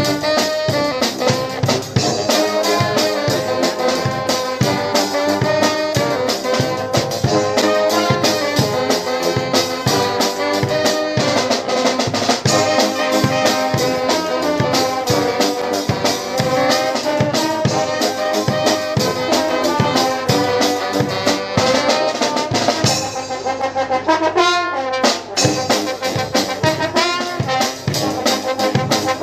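Brass band playing live: trumpets and trombones carry the tune over a steady drum-kit beat.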